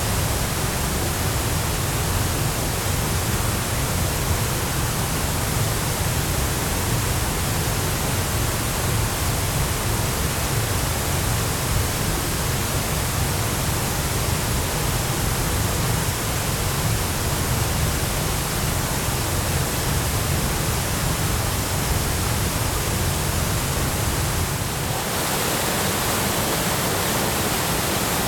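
Choshi Otaki waterfall's water pouring into its plunge pool: a loud, steady rush with a deep rumble under it. Near the end the rumble thins and the hiss turns a little brighter.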